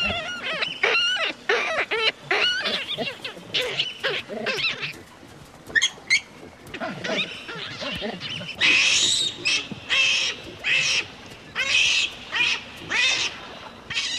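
Repeated animal calls: a run of short wavering cries, then harsher calls about two a second in the second half.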